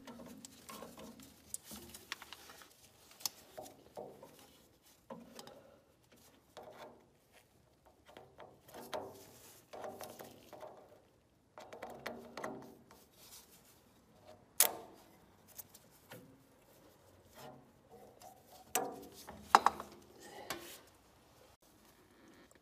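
Faint scattered rustles and small clicks of a gloved hand working an old inline fuel filter off its rubber fuel hose. Two sharp clicks stand out, one about two-thirds of the way through and a louder one a few seconds later.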